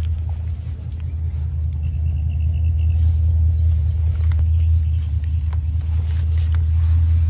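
Steady low rumble, with a faint, rapid high-pitched chirping for about a second near two seconds in.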